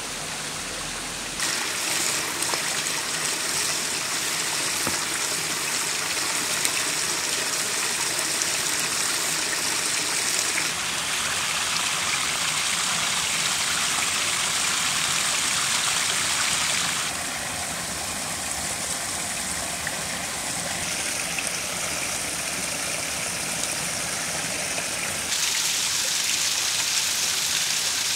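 Small forest stream running over rocks: a steady rush of water that steps louder and quieter several times.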